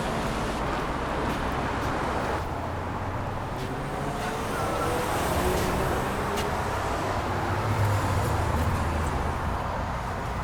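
Steady road traffic noise with a low rumble, a few faint rising and falling tones drifting through it.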